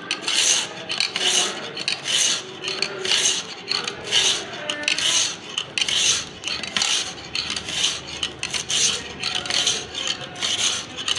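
Sharpening stone in a rod-guided wooden jig stroked back and forth over a kitchen knife's edge, giving a rasping scrape with each pass at a steady rhythm of roughly one stroke a second.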